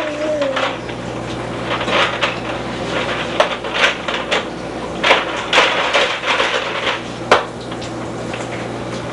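Plastic toys clattering and knocking against a high-chair tray in a string of irregular knocks, the sharpest about seven seconds in. A baby's brief falling vocal sound at the start, and a steady low hum underneath.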